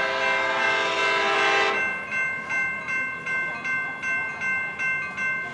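Sounder commuter train cab car sounding its horn in one blast of about two seconds as it approaches, over a level-crossing warning bell that rings steadily about two and a half strokes a second.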